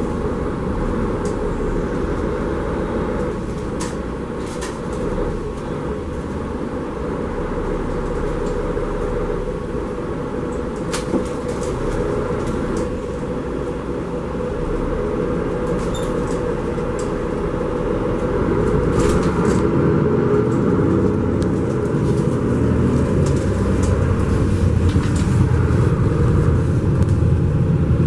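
Cabin noise inside a Mercedes-Benz Conecto G articulated city bus on the move: steady engine and road rumble with a few short rattles and clicks. The rumble grows louder about two-thirds of the way through.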